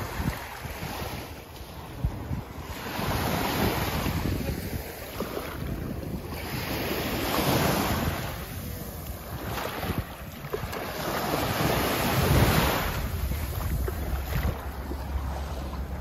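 Small waves lapping onto a sandy beach, the wash swelling and falling three times, with wind buffeting the microphone.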